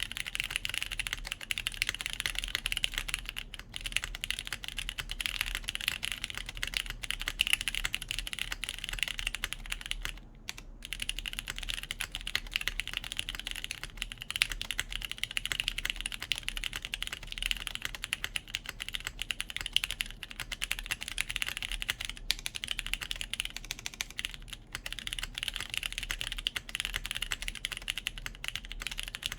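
Steady, fast typing on a top-mounted JJW Cloudline V2 mechanical keyboard with lubed Cherry MX Brown tactile switches, a polypropylene plate and GMK Sloth keycaps. The typing pauses briefly about ten seconds in.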